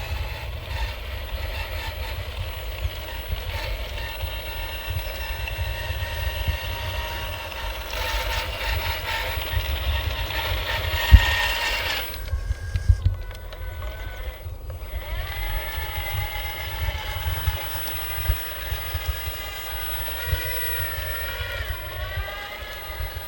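Whine of radio-controlled model trucks and construction machines: a steady pitched hum, then pitch rising and falling repeatedly from about 15 seconds in, over a constant low rumble. A single sharp knock stands out about 11 seconds in.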